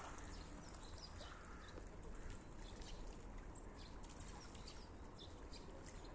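Faint outdoor ambience: a person's footsteps while walking, with a few short, high bird chirps scattered through it.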